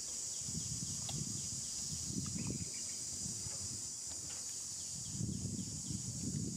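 Steady, high-pitched drone of insects, with a low rumble that comes and goes underneath.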